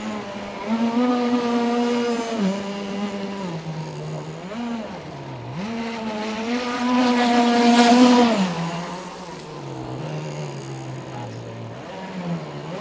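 Internal-combustion engine of a Riptide Stealth radio-controlled model speedboat running hard on the water, its pitch rising and falling repeatedly as the throttle opens and eases through the turns. It is loudest about two-thirds of the way through, with a hissing rush as the boat passes close.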